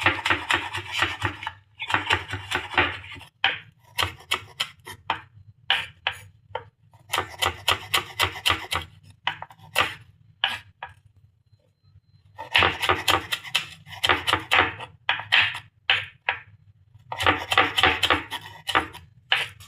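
Knife chopping rapidly on a cutting board, in runs of quick strokes broken by short pauses.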